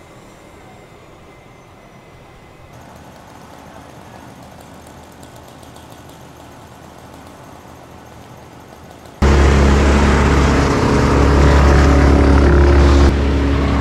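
Faint steady machinery hum, then about nine seconds in a loud engine cuts in abruptly and runs steadily at a constant pitch.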